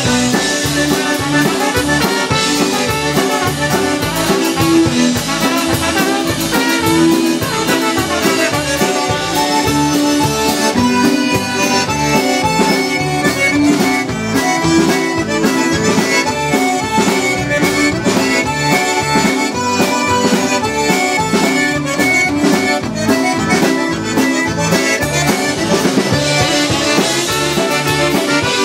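Live polka band playing a polka: trumpet and tenor saxophone with concertina and accordion, over bass guitar and drums.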